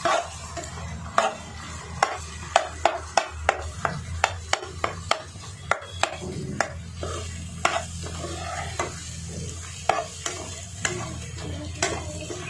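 A steel spoon stirring chunks of potato through thick fried masala in a non-stick kadai, knocking and scraping against the pan in quick, irregular clinks, over a low sizzle of frying.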